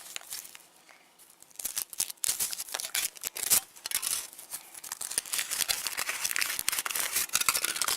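Foil wrapper of a Kinder Surprise chocolate egg crinkling and tearing as it is unwrapped by hand, a rapid irregular crackle that starts about a second and a half in.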